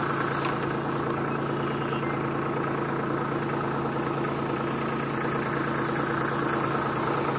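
Kubota B2601 compact tractor's three-cylinder diesel engine idling steadily.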